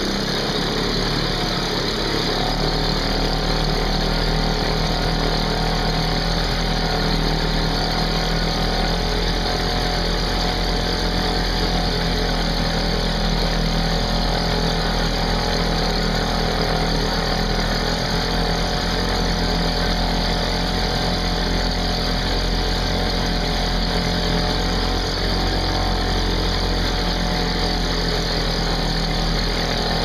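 British Seagull 102 two-stroke outboard motor running steadily in a test barrel, its propeller churning the water.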